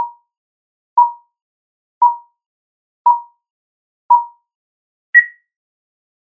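Film countdown leader beeps: short identical tones once a second, five in all, then a single higher-pitched beep about five seconds in that closes the countdown.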